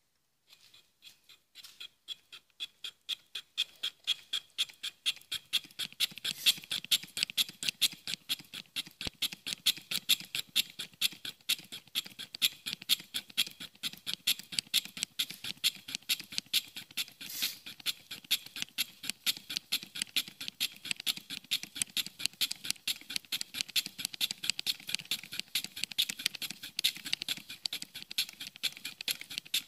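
Gear teeth being cut on a lathe, broaching-style: a cutter on the carriage is stroked back and forth through a gear blank by a lever linkage, giving an even, rapid rhythm of scraping cuts, a few strokes a second. It starts faint and grows louder over the first few seconds.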